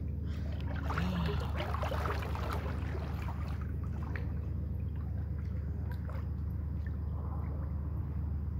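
Swimming-pool water lapping and splashing around a person moving in it, busiest in the first few seconds and gentler after, over a steady low hum.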